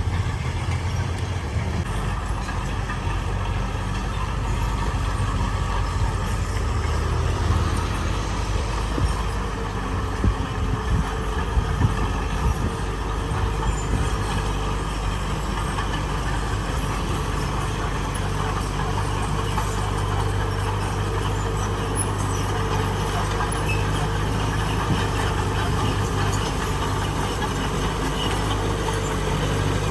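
Heavy diesel engine of earthmoving machinery running steadily, with a few short knocks and rattles between about seven and twelve seconds in.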